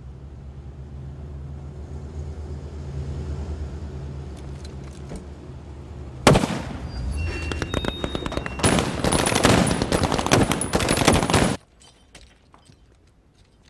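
A low steady rumble, then about six seconds in a sudden, loud burst of machine-gun fire lasting about five seconds that stops abruptly.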